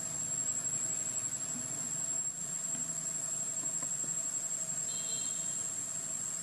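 Insects in the forest trees making a steady, high-pitched trill that never lets up, with a brief high chirp about five seconds in.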